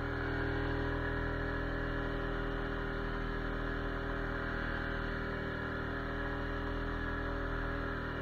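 ATV engine running at a steady speed, holding an even pitch throughout.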